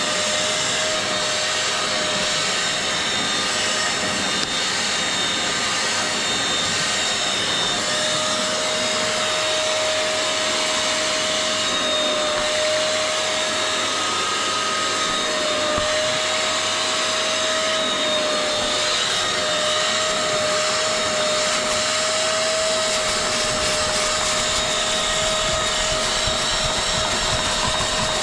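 Wet-and-dry vacuum running steadily with a constant whine, sucking washing-up-liquid foam and dirty water out of car-seat upholstery.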